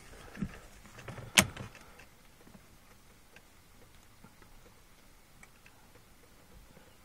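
A sharp click inside a car about a second and a half in, with a softer knock just before it, then only faint ticks. The engine is not yet running: the oil pressure gauge reads zero and the red warning lamp is lit.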